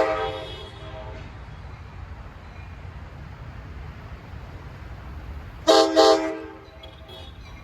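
Diesel locomotive air horn: the tail of a long blast fading out in the first second, then two short blasts in quick succession about five and a half seconds in, over the steady low rumble of the train.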